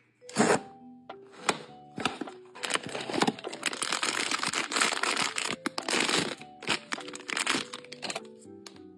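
A sealed plastic blind-box pouch being handled and torn open, with a loud spell of dense crinkling and tearing in the middle and lighter taps and rustles before and after it. Soft background music plays underneath.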